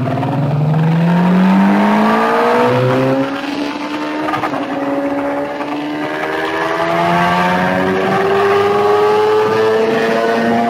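Sport motorcycle engine under hard acceleration, its pitch climbing, with an upshift about three seconds in, then rising steadily again in the higher gear. Wind rush over the bike-mounted microphone runs underneath.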